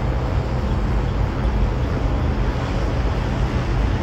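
Steady low engine-like rumble with a constant hum, mixed with outdoor noise.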